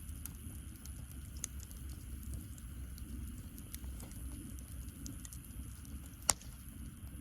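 Wood fire burning in a fire pit, crackling with scattered small snaps over a steady low rumble, and one sharp pop about six seconds in.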